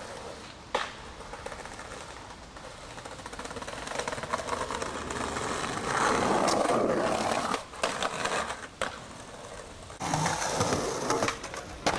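Skateboard wheels rolling over paving stones, with several sharp clacks of the board: a pop about a second in, louder rolling from about halfway, and more clacks near the end.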